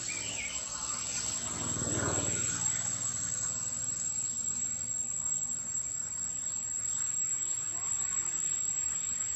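Steady high insect drone over outdoor hiss, with a low engine rumble that swells and fades about two seconds in. A few short high chirps right at the start.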